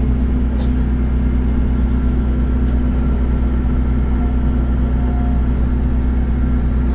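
Steady low rumble of a jet airliner taxiing after landing, heard from inside the cabin, with a faint steady whine above it.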